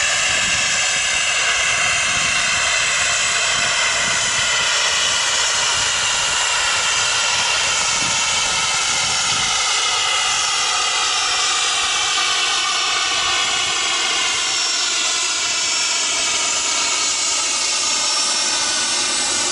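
Pilatus PC-12/45's single PT6A turboprop engine and propeller at climb power after takeoff: a steady whine over a propeller drone, its stacked tones slowly falling in pitch as the aircraft flies away.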